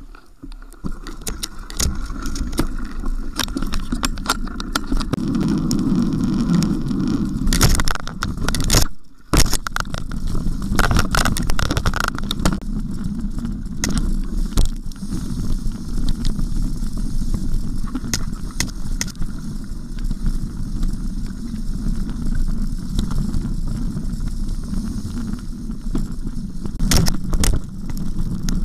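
Specialized Stumpjumper 6Fattie mountain bike ridden fast over a wet, muddy trail: a steady rumble of wind and tyres with frequent knocks and rattles of the bike over bumps. There is a brief lull about nine seconds in.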